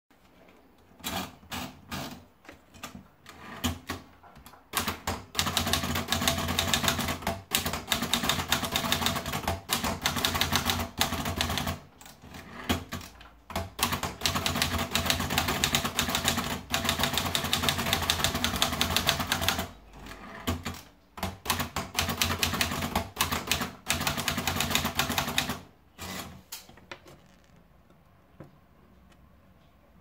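Olivetti Lettera 22 manual portable typewriter. A few scattered clicks come as the paper is wound in, then fast typing follows in rapid runs of key strikes, with two short breaks, and a few last clicks near the end.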